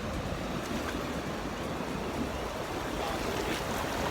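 Ocean surf breaking and washing onto a beach: a steady rush of waves.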